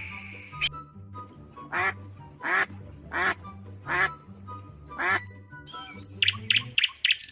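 Duck quacking: five separate loud quacks, then a quick run of short quacks near the end, over background music.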